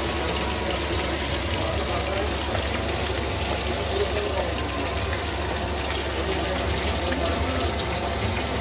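Crab pieces and spices sizzling in hot oil in an aluminium karahi: a steady, even crackling hiss over a low steady hum.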